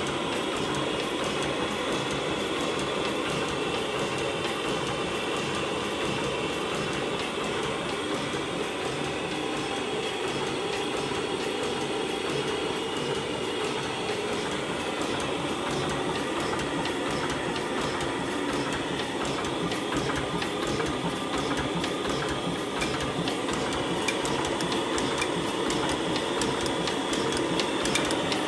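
1909 Richard Hornsby 4 hp hot-bulb oil engine, a single-cylinder horizontal stationary engine, running steadily: a continuous, even mechanical clatter with rapid fine clicking and no change in speed.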